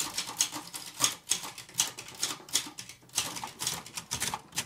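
Silver-Reed Silverette II manual portable typewriter being typed on: a quick, irregular run of key clacks as the typebars strike, with a brief pause about three seconds in.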